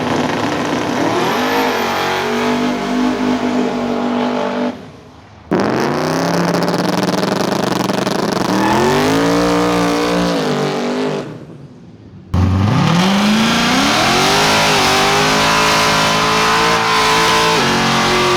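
High-performance car engine revving up under hard acceleration, three separate pulls, each rising in pitch and then holding high, with the first two breaking off suddenly.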